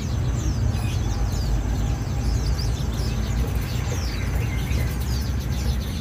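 Many small cage birds chirping in short, high, falling calls, scattered and overlapping, over a steady low rumble.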